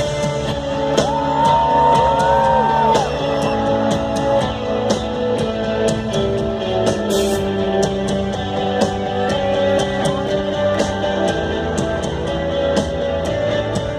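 Rock band playing live, with a long sung vocal note held from about one to three seconds in over the band.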